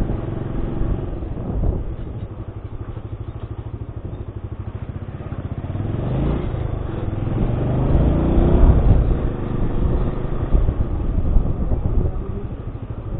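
Small motorcycle engine running while riding slowly, its pitch rising as it speeds up about six seconds in, loudest near the nine-second mark, then easing off again.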